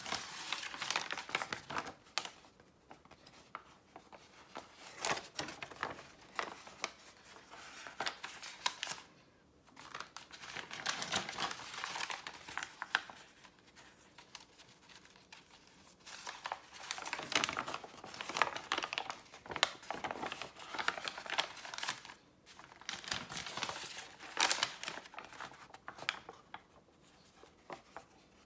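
Sheets of hand-dyed paper being handled, crinkling and rustling in bursts of a few seconds with short quiet gaps between them.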